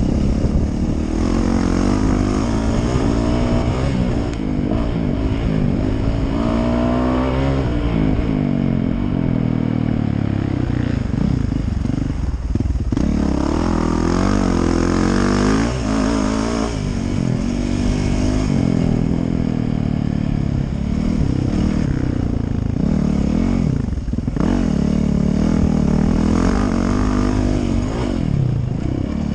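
Yamaha 450 motocross bike's four-stroke single-cylinder engine revving up and down as it is ridden hard around a dirt track, pitch climbing through each gear and dropping off the throttle a few times.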